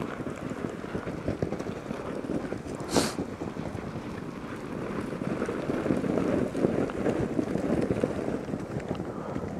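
A herd of American bison running past over snow: a dense, continuous trampling of hooves that grows louder from about five seconds in. One short sharp sound stands out about three seconds in.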